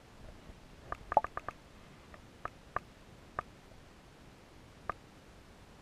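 Sharp, alike clicks heard underwater over a faint steady hiss: a quick run of about six around a second in, then four single clicks spread over the next few seconds.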